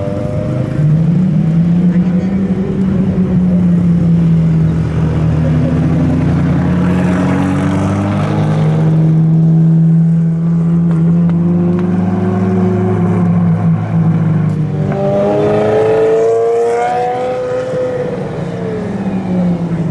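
Supercar engines running at low revs as the cars roll slowly past, holding a steady low note. About fifteen seconds in, an engine revs up and its pitch rises before falling away.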